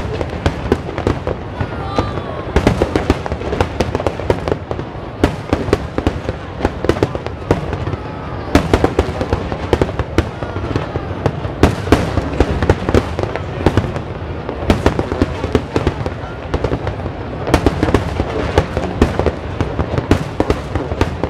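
Fireworks display: a dense, continuous barrage of shells bursting, several sharp bangs a second over steady crackling, with no pause.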